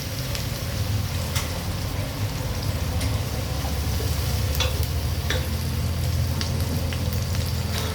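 Food frying and sizzling in a cooking pot over a steady low hum, with a few sharp clicks scattered through it.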